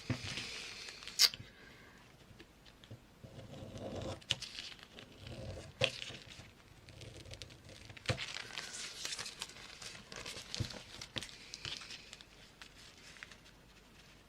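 Scissors cutting through a doubled plastic bag: irregular crinkling and rustling of the plastic, with a few sharp snips of the blades.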